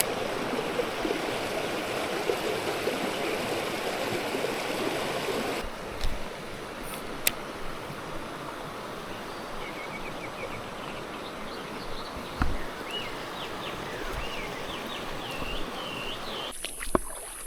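Mountain stream rushing steadily over rocks. It gets quieter about six seconds in, with a few sharp knocks and short high chirps over the water noise later on.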